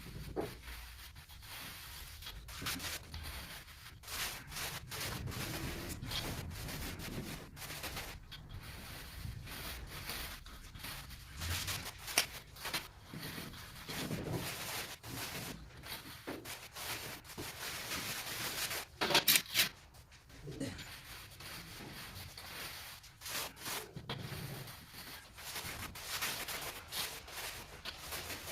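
Trowel scraping and rubbing over mortar in irregular strokes while a floor base is levelled. A louder run of scrapes comes about two-thirds of the way in.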